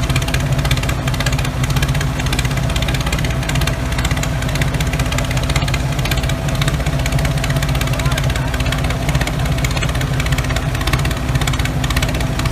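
A motor running steadily at an even speed, like an idling engine.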